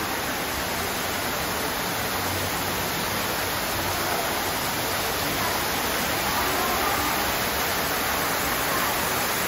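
Artificial waterfall pouring into a pool: a steady rush of falling water that grows slightly louder.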